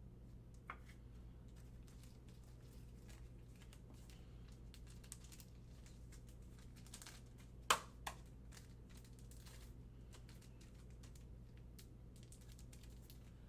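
Trading cards and their packaging handled quietly: faint ticks and rustles, with two sharper clicks close together about eight seconds in, over a steady low hum.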